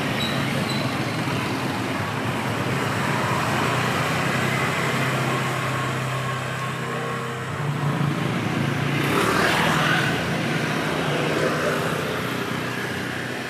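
Street traffic noise with a vehicle engine humming steadily. Another vehicle swells past close by about nine seconds in.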